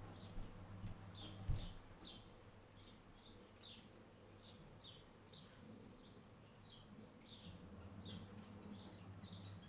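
Small garden birds chirping: a steady run of short, high chirps, each sliding down in pitch, about two a second. A low thump about a second and a half in is the loudest sound.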